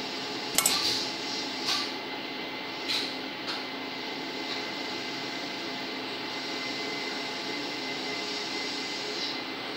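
About five light metal clicks and clinks in the first few seconds as tools and parts are handled on an aluminium cylinder head during valve measurement. A steady workshop hum runs underneath.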